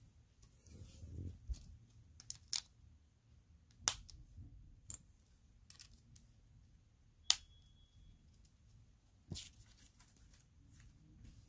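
Lego pieces being handled and snapped together: a rustle about a second in, then scattered sharp plastic clicks, about eight in all, the sharpest about seven seconds in.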